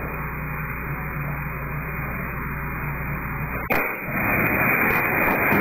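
Security camera's own audio: a steady hiss with a low hum. About two-thirds of the way through there is a sharp click, then a louder, brighter hiss that stops suddenly at the end.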